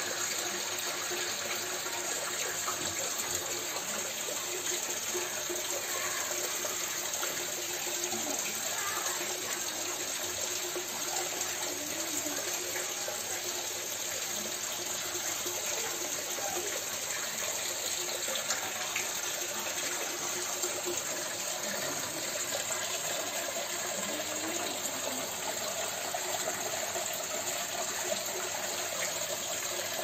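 Water from a small homemade rock waterfall splashing steadily into a garden fish pond.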